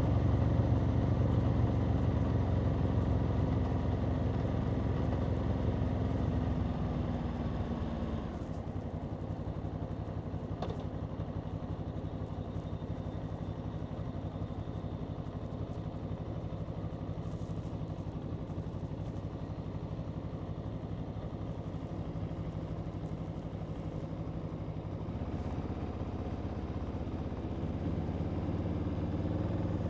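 Aprilia Tuono V4's V4 engine: revs falling as the bike slows for the first eight seconds or so, then a steady, quieter idle for about seventeen seconds, then the revs climbing again near the end as it pulls away.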